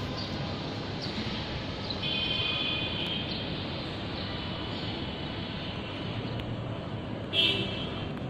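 Steady outdoor city background noise, a hum of distant traffic, with a few short high-pitched sounds about two seconds in and a louder brief one near the end.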